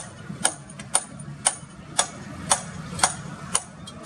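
Sharp, evenly spaced ticks or knocks, about two a second, over a faint steady low rumble.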